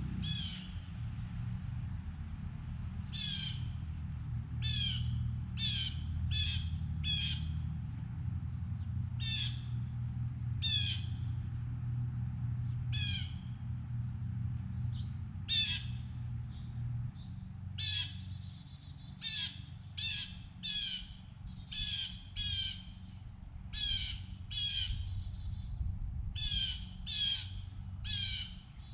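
A bird giving short, harsh, down-slurred calls over and over, about one a second, over a steady low rumble.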